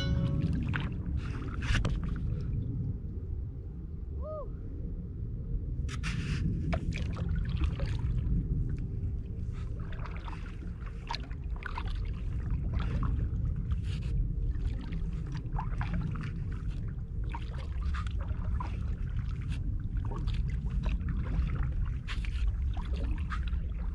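Kayak being paddled on flat water: a steady low rumble of water and air against the plastic hull, with paddle splashes and drips clicking about once a second from roughly six seconds in. A single short chirp sounds about four seconds in.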